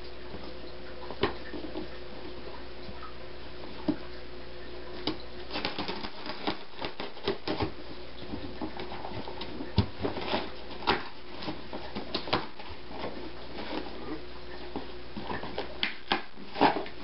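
A cardboard shipping box being opened and its packaging handled: irregular clicks, taps and rustles of cardboard and wrapping, sparse at first and busier from about five seconds in, over a faint steady hum.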